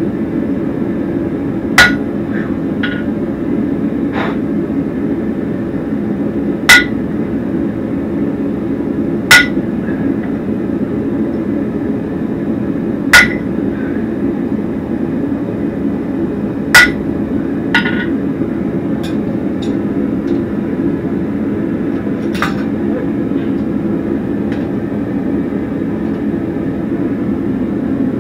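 Hammer blows on hot steel over a Hay Budden anvil: about five loud, ringing single strikes a few seconds apart, with lighter taps between them, over a steady low rushing noise.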